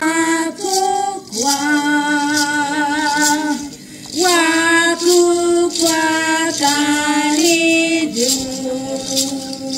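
Two women singing together into a microphone, holding long notes in slow phrases with short breaks between them, with a hand rattle shaken along.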